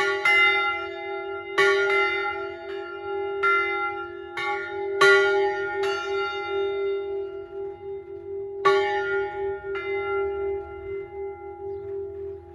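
Three swinging church bells in a steel-frame tower ringing together: two bronze bells of about 130 and 290 kg and a cast-steel bell of about 200 kg, tuned near f'', f-sharp'' and c''. The strokes fall irregularly and stop after about ten seconds, leaving the bells' hum to fade.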